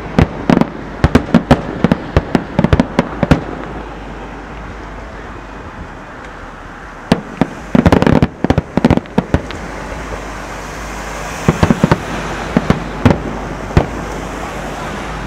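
Aerial fireworks shells bursting as sharp bangs in rapid volleys. A dense run of bangs opens, then a short lull, then another dense cluster about eight seconds in, with scattered bangs near the end.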